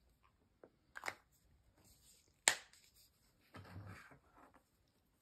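Handling of paint marker pens on a desk: a few light clicks, one sharper click about halfway through, and a short rustle after it.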